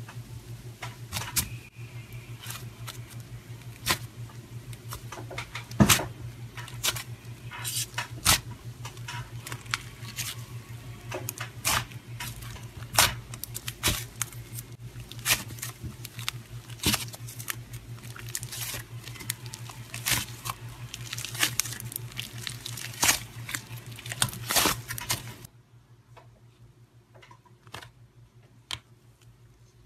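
Thick white slime being pressed and poked with the fingertips, giving many sharp, irregular crackling clicks and pops over a low steady hum. About 25 seconds in the sound drops abruptly to a much quieter stretch with only a few faint clicks.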